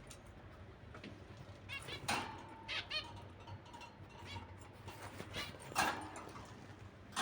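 Caged pet birds calling: a few short pitched chirps and squawks, the most prominent about two, three and six seconds in, over a low background hum.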